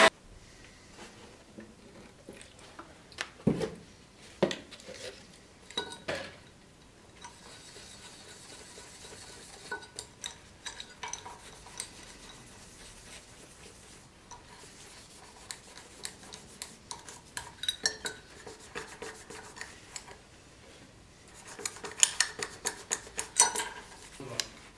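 Small metal scabbard fitting with a ring being handled and fitted by hand at a bench vise: scattered light metallic clicks, taps and clinks. A few louder knocks come in the first few seconds, and a quick run of clicks near the end.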